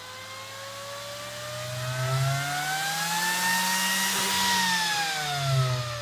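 Dell PowerEdge R710 server fan driven by a fan controller, spinning up towards about 10,000 RPM: its high whine rises in pitch for about four seconds with a growing rush of air, then falls again near the end as it slows.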